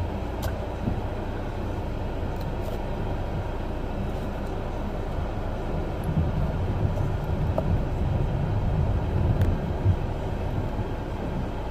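Car engine and tyre noise heard inside the cabin as the car moves slowly: a steady low rumble that grows louder and more uneven about six seconds in.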